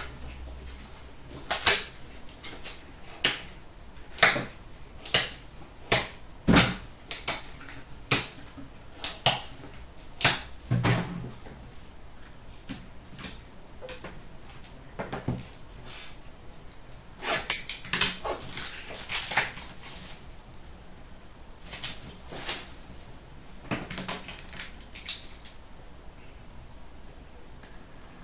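Hard plastic card holders clacking as they are handled and stacked on a glass counter. The sharp clicks come about one a second, with a longer stretch of scraping and rustling partway through, then a few more clicks.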